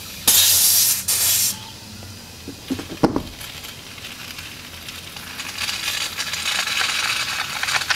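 Two loud, sharp hisses of compressed air as a donor hose's locking air chuck is pushed onto the valve of a motorcycle tire over-inflated to 50 psi, then a short knock about three seconds in. From about five seconds a hiss swells steadily as air rushes through the hose from that tire into the unseated front tubeless tire to blow its bead out against the rim.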